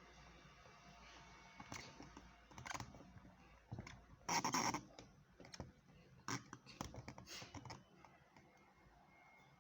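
Scattered light clicks and knocks of parts and tools being handled while a washing machine is taken apart, with one longer rustling scrape about four seconds in.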